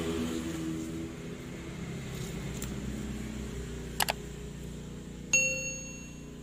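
Two quick clicks, then a single clear metallic ding that rings on for about a second: a small metal object struck. A low steady drone runs underneath.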